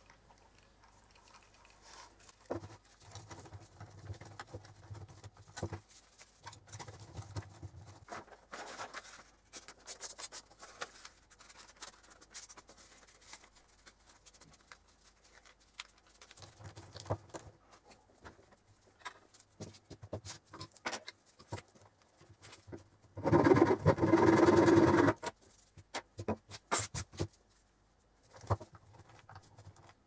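Gloved hands handling and packing small items into a small metal tin: light rustles, taps and clicks, with one much louder rustle lasting about a second and a half near the end.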